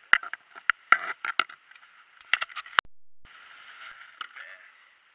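Irregular crinkling, rustling and knocking from handling a plastic bag and tarp inside a plastic kayak, with a sharp click nearly three seconds in, then a short stretch of steady hiss.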